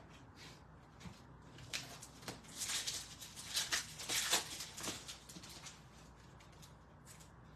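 Foil hockey card pack wrapper crinkling and tearing as it is ripped open by hand: a burst of crackly rustling starting about two seconds in and lasting some three seconds, with lighter handling rustles either side.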